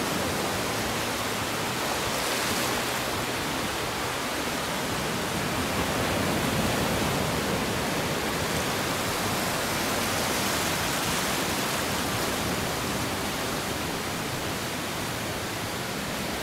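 Ocean surf: waves breaking offshore and washing up over the wet sand in a steady rushing wash.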